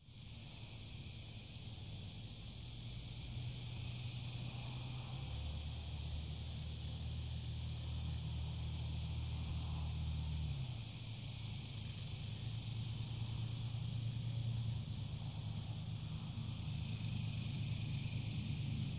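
Steady, high-pitched drone of insects calling in the trees, with a low, steady rumble underneath.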